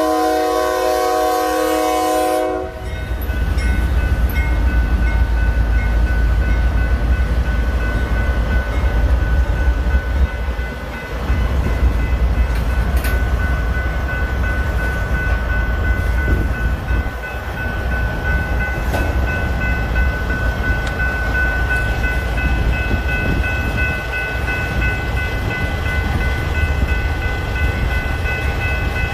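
A CSX AC44CW diesel locomotive's multi-chime horn sounds and cuts off about two and a half seconds in, then the two GE freight locomotives rumble through the grade crossing and the freight cars roll past. A railroad crossing's electronic bell rings steadily over it.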